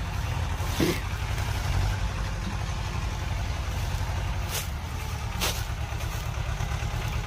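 Swaraj 724 tractor's diesel engine running steadily under load as it pulls a 14-disc harrow, a low pulsing rumble. A few faint clicks are heard.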